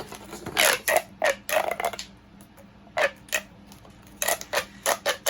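Small corrugated plastic pop tubes being stretched and squashed, giving an irregular series of sharp clicks and pops, some in quick clusters.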